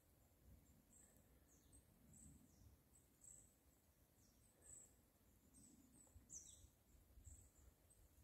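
Small birds calling: faint, very high, short chirps repeated irregularly, several sliding downward, with one louder chirp about six seconds in, over a low background rumble.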